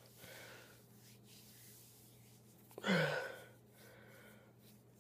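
A person's sudden, loud, breathy vocal exhalation about three seconds in, sharp at the start and falling in pitch, with quieter breaths around it.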